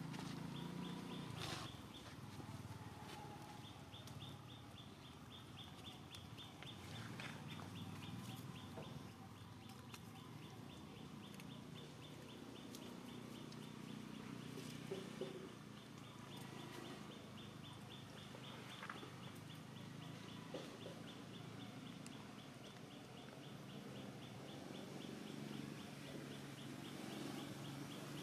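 Faint outdoor animal sounds: a fast, regular high chirping with scattered short calls and clucks underneath.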